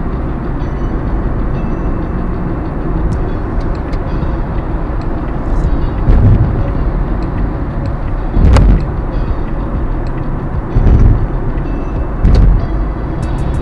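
Car driving, with steady engine and road rumble, and four brief louder low thumps.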